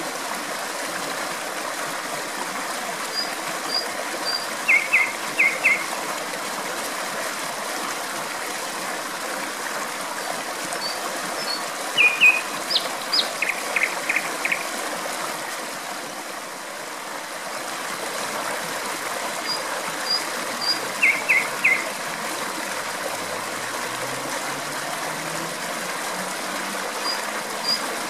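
Steady rush of flowing water with a common nightingale singing over it: short phrases of about three quick, loud notes, repeated every several seconds, with a few fainter high notes between.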